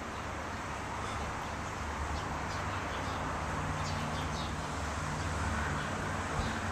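Steady outdoor background noise: a low rumble of distant traffic under an even hiss, with a few faint high chirps between about one and five seconds in.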